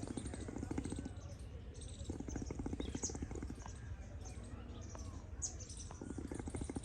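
Small birds chirping in short, high notes, over a low buzzing that comes and goes.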